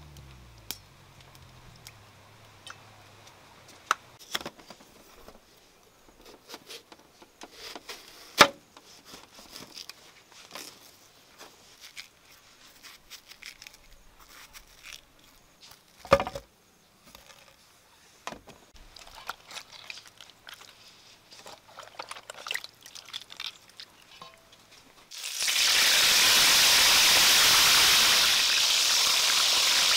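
Scattered light clicks and knocks of knife work on watermelon, then, about 25 seconds in, split fish in hot oil in a wok starts sizzling loudly and steadily.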